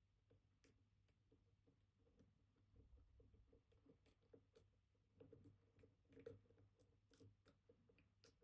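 Faint, irregular small clicks and ticks of a dimple-lock pick working the spring-loaded pins of a Kaba Titan Combi high-security dimple lock held under tension.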